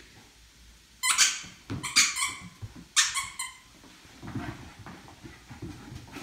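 Small white puppies whining in high-pitched yelps, three of them about a second apart, each falling in pitch, as they sit up begging.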